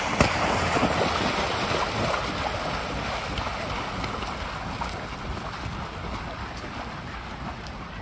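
Swans splashing and beating their wings on the water, a rushing wash of water noise that slowly fades, with wind on the microphone.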